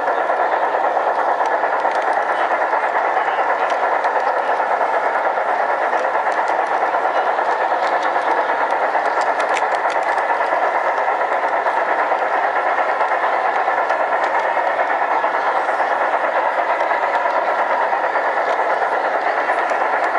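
LGB garden-scale model train running along its track, heard from on board at the front: steady rolling noise of wheels and motor, with a few faint clicks over the rail joints, over the constant din of an exhibition hall.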